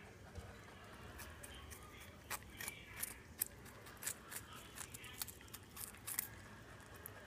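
Holland lop rabbit crunching a carrot: a run of crisp, irregular crunches from about a second in until near the end.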